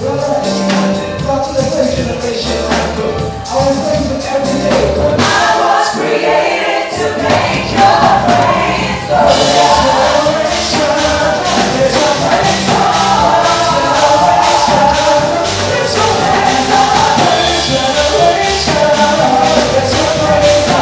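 Gospel music with singing over a steady beat with tambourine-like percussion.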